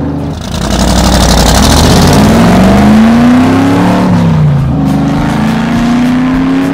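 Race car engine sound effect revving in several rising and falling sweeps, like a car speeding past, with a rush of wind-like noise in the first couple of seconds.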